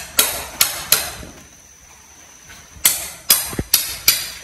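Sharp knocks of a farrier's trimming tool striking a horse's hoof as the overgrown hoof wall is cut back: three quick strikes in the first second, a pause, then four more near the end.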